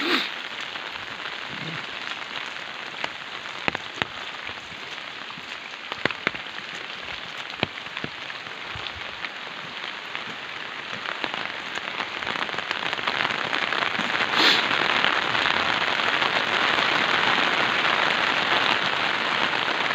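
Steady heavy rain falling, with scattered sharp ticks of drops striking nearby surfaces. The rain grows louder about two-thirds of the way through.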